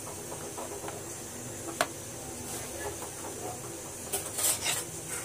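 Kitchen knife cutting through a rolled dough log onto a metal board: a single sharp click about two seconds in, then a few quick knocks and scrapes near the end, over a steady background hiss.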